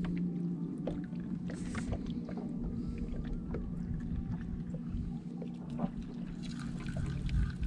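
Steady low hum of a boat's motor running, with scattered small ticks and splashes of water around the hull.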